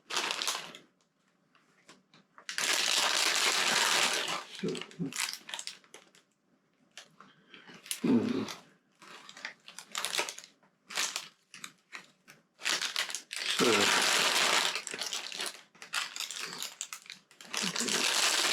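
Plastic Lego parts bags crinkling in bursts as they are rummaged through, with small clicks of loose bricks in between.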